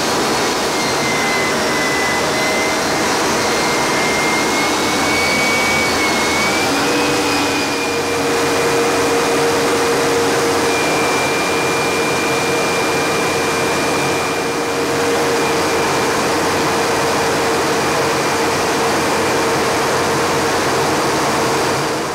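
Harrier jump jet's Rolls-Royce Pegasus turbofan heard from inside the cockpit in flight: a loud, steady rush of jet noise with a high whine over it. The whine's pitch shifts slightly about seven seconds in.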